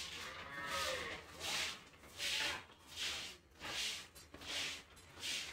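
A person drinking from a glass in steady gulps, a swallow with a breath about every three-quarters of a second.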